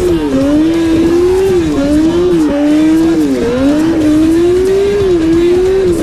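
A vehicle engine running hard, its pitch climbing slowly and then dropping sharply, again and again, about four or five times.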